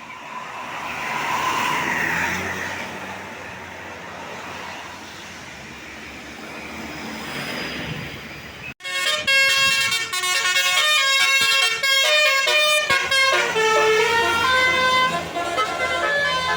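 Road noise of a vehicle going past, swelling and fading. Then, after an abrupt break about halfway through, a Basuri telolet bus horn plays a rapid tune of changing notes.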